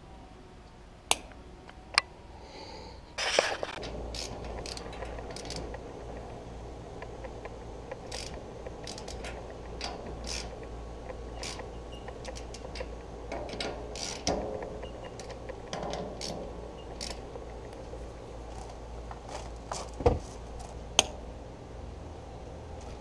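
Hand tools working on a condenser fan motor mount: sharp clicks of pliers snipping zip ties on the motor wires, then a long run of small metallic clicks and scrapes as a nut driver tightens the nuts on the fan motor's mounting bolts. A steady low hum starts about four seconds in.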